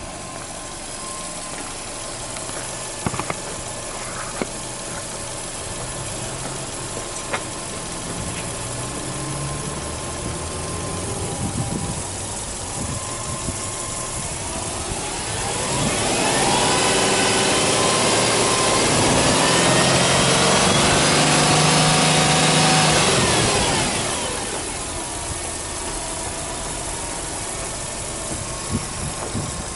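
Subaru Legacy B4 2.0GT spec.B's turbocharged 2.0-litre flat-four idling steadily. From about fifteen seconds in, a louder sound swells up, holds for about seven seconds, then fades away over the idle.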